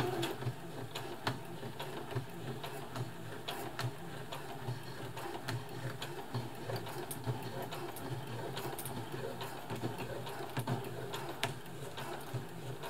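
Brother FS60X computerised sewing machine stitching slowly through a thick, many-layered denim jeans hem: a steady motor hum with light ticks from the needle mechanism.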